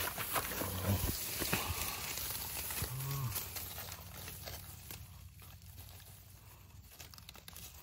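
Dry leaf litter and grass rustling and crackling as hands dig white egg-stage wild mushrooms out of the forest floor, with a few sharp crackles in the first half. The sound grows fainter toward the end.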